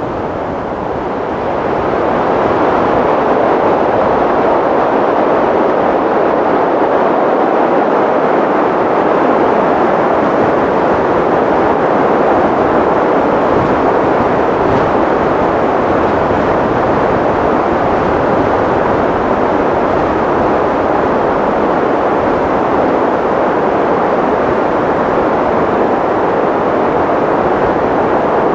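Wind sound effect: wind blowing as a steady, even noise with no whistle in it, swelling over the first two seconds and then holding.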